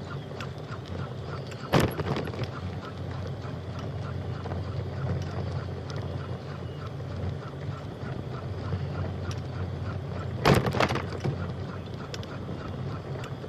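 Wind rumbling on the microphone during a bicycle ride, with a fast, even run of faint chirps underneath. Two loud knocks stand out, one about two seconds in and one about ten seconds in.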